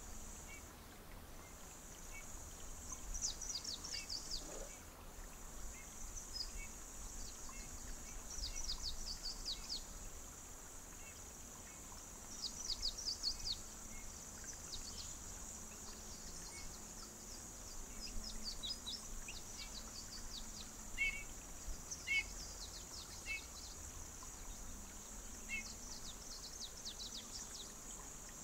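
Birds singing in scattered bursts of quick, short falling notes, with a few sharper chirps later on, over a steady high-pitched hiss.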